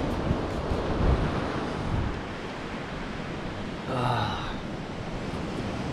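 Surf washing ashore, with wind buffeting the microphone most heavily in the first two seconds.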